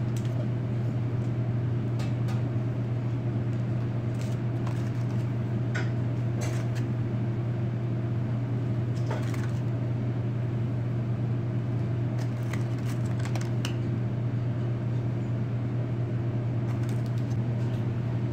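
Steady low machine hum, the kind a kitchen fan or refrigeration unit gives off, with a few faint light clicks scattered through it as grapes are pushed onto wooden toothpicks.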